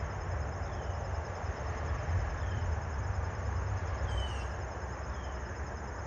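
Outdoor ambience. Insects keep up a steady, pulsing high trill, and a bird gives short falling chirps every second or so, over a louder low rumble.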